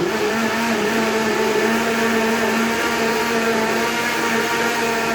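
Electric kitchen blender running steadily at a fixed pitch as it blends a watermelon shake, then cutting off right at the end.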